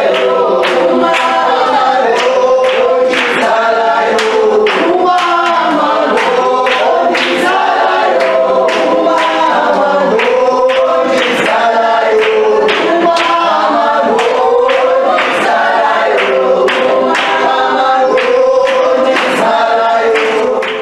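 Choir singing a gospel song in harmony, over a steady sharp beat of about two strokes a second.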